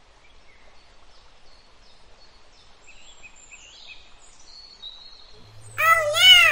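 Faint, short chirps of small birds, then near the end a loud animal call of two arching notes with a low hum under it.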